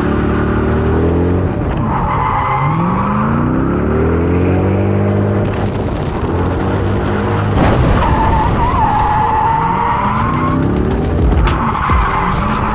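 Corvette V8 revving up over and over while drifting, its tires squealing at times. There is a sharp thump a little past halfway.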